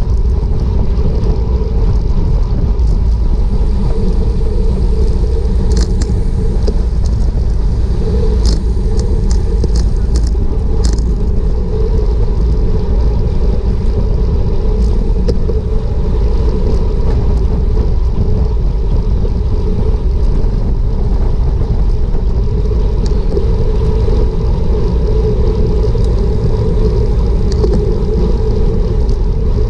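Wind buffeting a GoPro's microphone on a road bike moving at racing speed, around 25 mph: a loud, steady low rumble mixed with tyre and road hiss. A short run of brief high clicks comes about a third of the way in.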